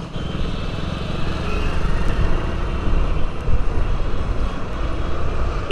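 Riding noise from a moving Hero Pleasure scooter: wind rushing over the microphone, with the scooter's engine and road traffic running steadily underneath.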